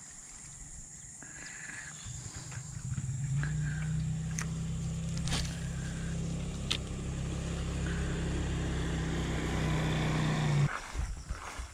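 A road vehicle's engine drone, steady in pitch, building over a couple of seconds and then cutting off suddenly near the end. A few sharp clicks sound over it.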